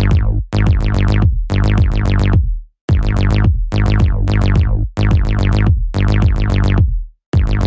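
Electronic house music with no vocals: rhythmic chord stabs whose brightness falls away quickly, over a deep bass. The sound cuts out for a moment about every two seconds.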